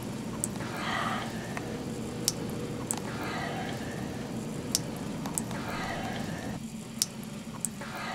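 A sleeping person breathing slowly and heavily, one noisy breath about every two and a half seconds, over a steady low room hum. A few sharp clicks fall between the breaths, several in pairs about half a second apart.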